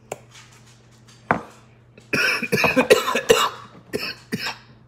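A plastic seasoning-jar cap clicks as it is twisted open, then a man coughs hard for about a second and a half, followed by two short taps as the shaker is shaken.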